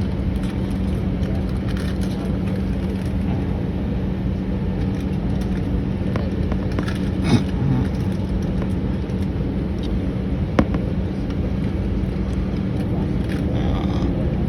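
Steady cabin rumble inside an Airbus A319 taxiing: the running engines and airframe give an even rumble with a steady hum, broken by a couple of faint knocks.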